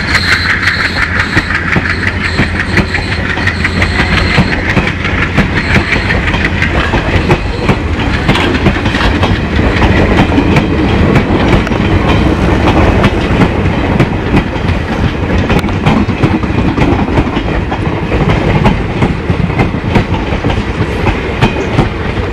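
Passenger coaches rolling past close by, their wheels clattering rhythmically over rail joints, over the steady low throb of the departing WDG3A's turbocharged 16-cylinder ALCO diesel engine under notched-up power. A high turbo whine fades out within the first several seconds as the locomotive draws away.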